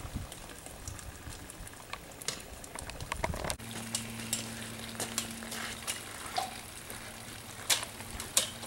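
Quiet outdoor ambience with scattered sharp crackles and clicks. About a third of the way in, a faint steady low hum sets in and holds.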